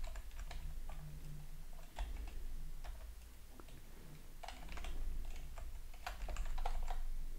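Typing on a computer keyboard: irregular clusters of key clicks separated by short pauses.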